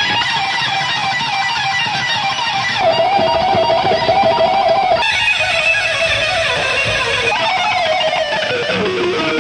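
Electric guitar lead from a Stratocaster-style guitar, playing sustained notes with wide vibrato and then a descending line near the end. The sound changes abruptly twice, as at splices between different live recordings.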